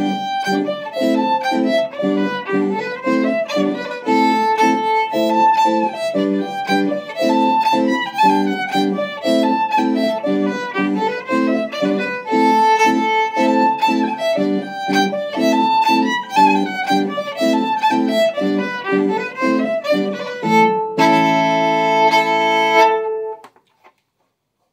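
Solo fiddle playing an Irish traditional dance tune in a brisk, even run of bowed notes. It finishes on a long held note of about two seconds, then stops.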